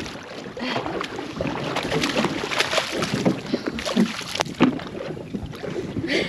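Water splashing and slapping against an aluminium boat hull in irregular sharp splashes as a hooked coral trout thrashes at the surface beside the boat.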